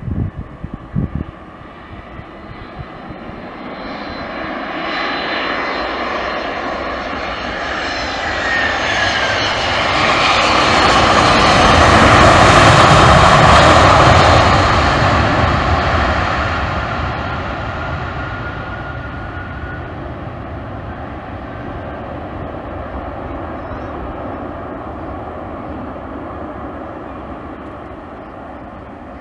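Airbus A319-111 jet airliner's CFM56 turbofans on landing, swelling to a peak as the plane passes close on the runway and then fading as it rolls away. Partway through, a high engine whine falls in pitch as the plane goes by. A few low thumps sound right at the start.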